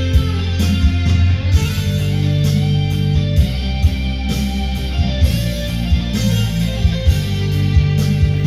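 Instrumental intro of a rock song: electric guitar over bass and drums keeping a steady beat, with no vocals yet.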